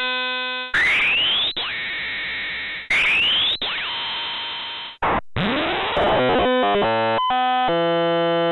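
Chaotic-phase digital synthesis: a sine oscillator whose phase is bent by simple equations, giving buzzy tones that jump in pitch. Twice it breaks into a noisy burst with a rising sweep. About halfway there is a falling sweep, then quick-changing notes that settle into steady held tones.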